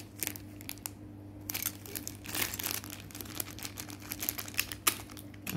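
A crinkly packaging wrapper crackling and rustling irregularly as it is handled and pulled open, over a faint steady low hum.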